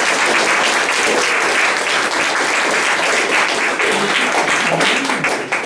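Audience applauding steadily, a dense patter of many hands clapping that dies away at the end.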